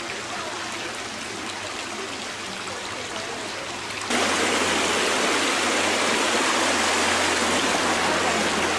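Shallow river water rushing over rocks, a steady wash. About four seconds in it cuts suddenly to a much louder, closer rush.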